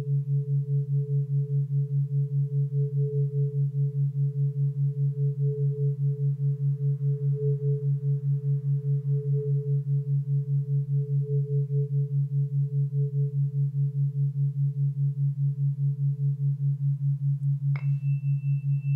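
Brain-entrainment background tone: a low hum pulsing about four times a second. Over it a metal tuning fork's ring fades away, and near the end a fork is struck, giving a sharp tap and a new high, steady ring.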